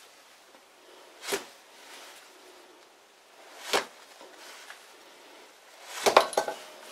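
Oil filter strap wrench being heaved on to unscrew a steel backing plate from a lathe spindle: two short sharp scraping creaks, then a louder cluster of knocks and clatter near the end.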